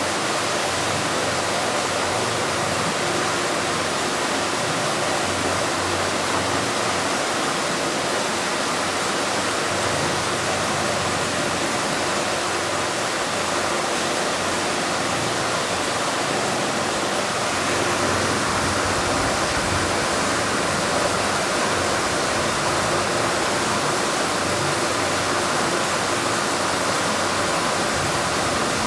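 Steady, loud roar of sea surf, an even hiss with no separate wave breaks standing out; it turns slightly deeper a little past the middle.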